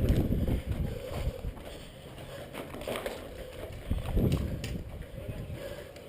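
Uneven low rumble of movement noise on a body-worn camera, footsteps and buffeting, with a few short sharp clicks near the middle.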